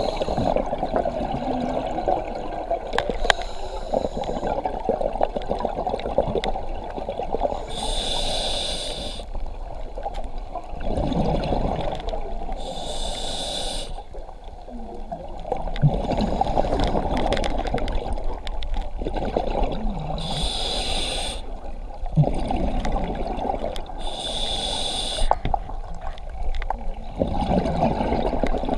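Scuba diver breathing through a regulator underwater: four hissing breaths about a second long, several seconds apart, with bubbling exhalations between them.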